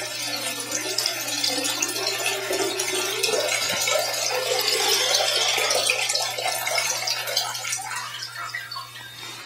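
Running water pouring steadily, over a steady low hum; it fades away near the end.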